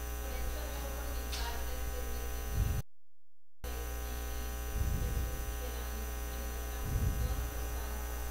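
Steady electrical mains hum and buzz with many overtones, picked up by a sound system. It drops out completely for under a second near the middle, and a few dull low thuds sit under it.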